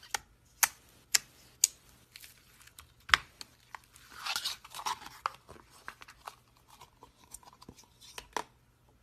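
Fingers poking and squeezing thick white slime, making sharp pops about every half second at first, then a stretch of crackling and smaller clicks, with a couple more pops near the end.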